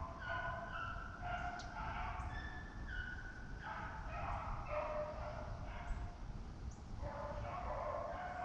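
Beagles baying as they run a rabbit's trail, several dogs' voices overlapping in drawn-out notes of different pitches, with wind rumbling low on the microphone.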